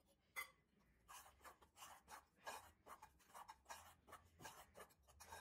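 Spoon scraping and stirring in a stainless steel bowl, working hot ghee into a ground roasted-gram and sugar powder. Faint, quick rasping strokes, about four a second.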